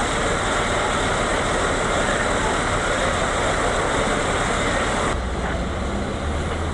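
Steady outdoor vehicle noise, an even rushing hiss. About five seconds in it cuts abruptly to a quieter low engine hum.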